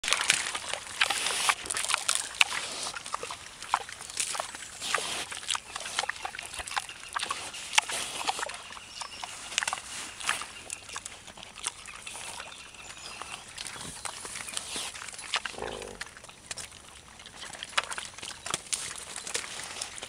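Wild boar rooting with its snout in shallow muddy water: a rapid run of wet, kiss-like smacks and sloshing, thickest in the first half.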